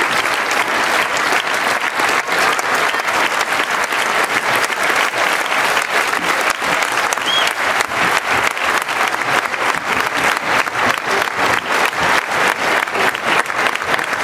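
Large arena crowd applauding steadily, a dense sustained clatter of many hands clapping, with a brief whistle from the stands about halfway through.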